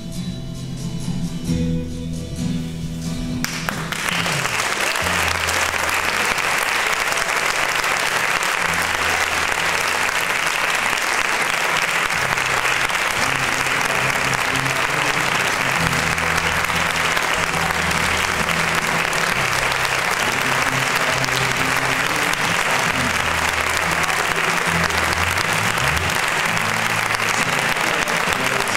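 Audience applauding, starting suddenly about three and a half seconds in and then going on steadily. Music with a bass line plays under the applause throughout.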